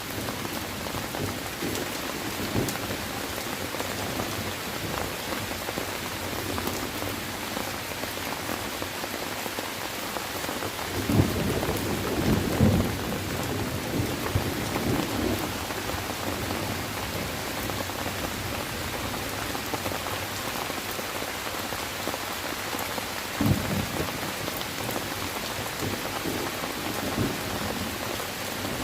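Steady, heavy rain falling. Low rumbles of thunder swell up for a couple of seconds around the middle and roll once more, briefly, near the end.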